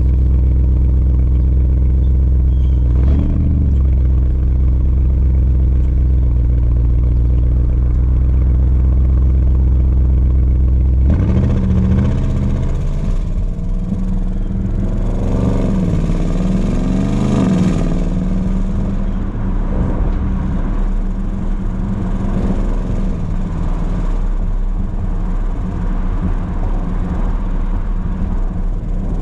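Audi RS Q8's 4.0-litre twin-turbo V8, with its big exhaust resonator deleted, idling steadily, with a brief rise in the note about three seconds in. About eleven seconds in it pulls away, the exhaust note rising and dipping several times as the car gathers speed, then settles into a steady drive with tyre and road noise underneath.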